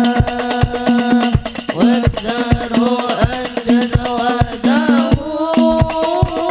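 Sholawat singing with a hadrah ensemble: a lead voice over frame drums (rebana) beaten in a steady beat of deep strokes, with the jingles on the drum rims rattling throughout.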